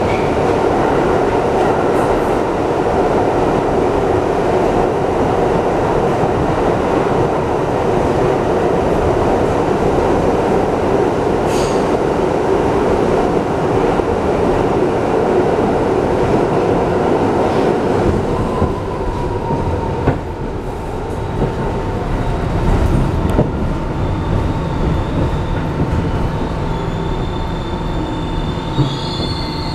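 R62A subway car on the 1 train running through the tunnel, heard from inside the car: a loud, steady rumble of wheels on rail. After about eighteen seconds it eases as the train slows, a steady whine comes in, and high wheel squeal sounds near the end as the train pulls into a station.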